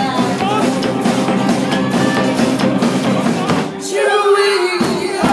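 Live band playing, with a singer over drums and bass.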